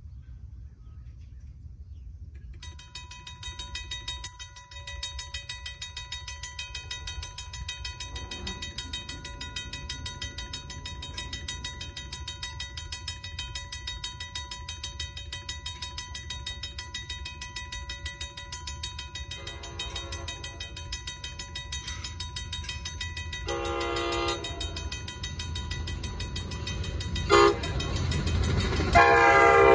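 A railroad crossing's electronic bell starts ringing rapidly a few seconds in. Over the last ten seconds an approaching Amtrak train blows its horn in the grade-crossing pattern, long, long, short, long, while its rumble grows louder.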